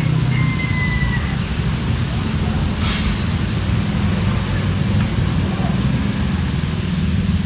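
Steady low hum and even splashing hiss from pond aerators spraying water, with faint voices in the background and a brief whistle near the start.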